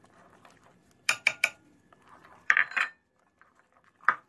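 Spoon clinking against the side of a bowl while stirring a thick batter: three quick sharp clinks about a second in, a louder cluster of knocks a little later, and one more clink near the end.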